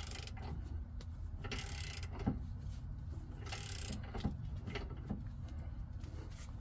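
Socket wrench working a brake caliper bracket bolt as it threads in stiffly: a few light metallic clicks and two short scraping spells over a low steady hum. The stiffness is something the mechanic puts down to old Loctite on the threads, unsure whether it is cross-threaded.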